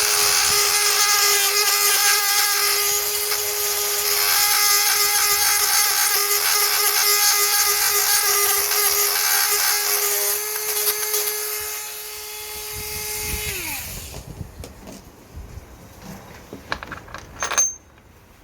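Dremel rotary tool running at a steady high speed, grinding away the plastic bodywork. About thirteen seconds in it winds down and stops, followed by light scraping and handling and a sharp click near the end.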